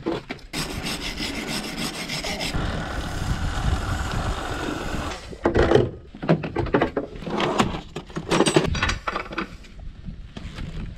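Motocross bike chain being cleaned: a long aerosol spray hiss for the first few seconds, then a wire brush scrubbing the chain in short, uneven strokes.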